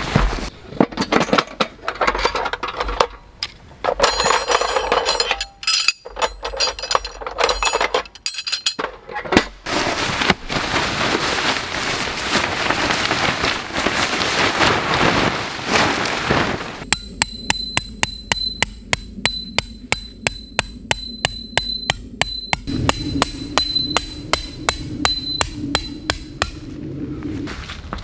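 Rustling and handling of nylon tarp fabric as a 4×4 DD tarp is unpacked and spread out. Then, for about ten seconds near the end, come steady hammer blows, about three a second, each with a short ring, typical of tent pegs being driven in to pitch the tarp.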